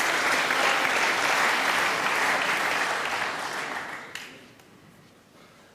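Snooker audience applauding, the clapping dying away about four seconds in.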